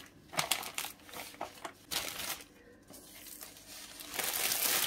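Thin plastic food bag crinkling and rustling as it is opened and handled. Sparse crackles at first, then a denser, louder rustle from about four seconds in.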